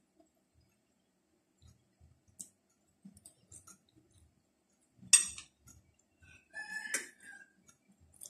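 Close-up eating sounds of a person eating spicy minced-pork larb from a spoon: small mouth clicks and chewing, a sharp click about five seconds in, and a short rasping crunch about a second and a half later.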